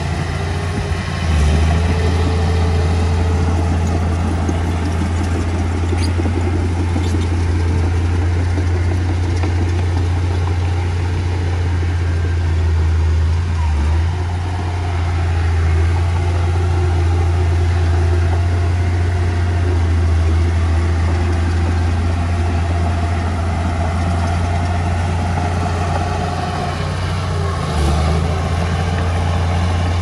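Heavy diesel engine of earthmoving machinery running steadily at a low, even pitch, with a few brief dips and rises in load.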